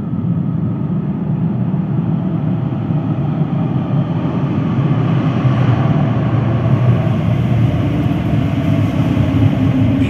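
British Rail Class 345 Elizabeth line electric train running through a tunnel: a steady low rumble of wheels on rail with a faint whine. It grows slowly louder as the train comes up and passes close by.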